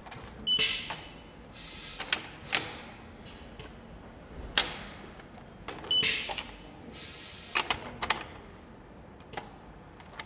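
Suspended multi-spindle nut runner working the bolts on an engine's cylinder head: a series of short bursts of whirring, each about a second or less, two of them led by a brief beep, with scattered clicks between.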